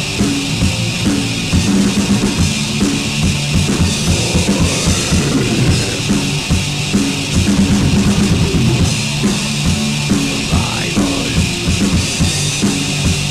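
Black metal song, an instrumental passage: a fast drum kit with a busy bass drum under a repeating low riff.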